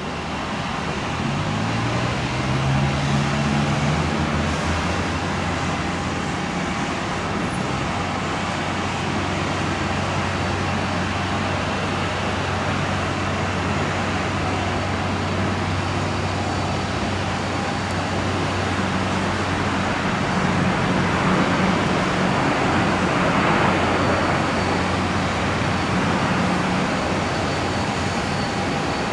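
Boeing 777-300ER's GE90 jet engines through final approach, touchdown and landing roll: a steady jet rumble and whine. It grows louder about three-quarters of the way through as the airliner rolls out on the runway.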